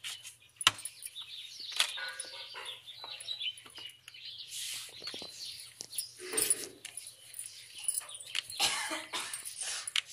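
Birds chirping and calling throughout, with occasional sharp knocks from a wooden rolling pin rolling out roti dough on a wooden board.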